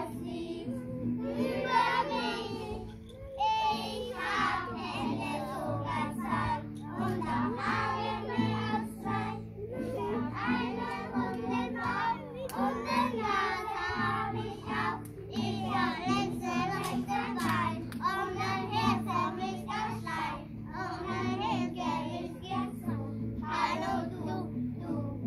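A children's song: children's voices singing over instrumental backing music with steady held low notes.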